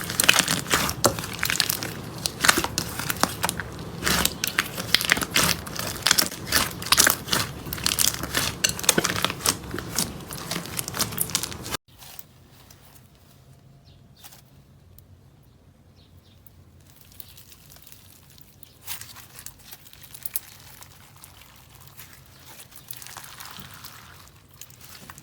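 Slime being squeezed and pressed by hand, with dense, loud crackling for the first half. After an abrupt cut about twelve seconds in, there is much quieter, sparse crackling and squishing.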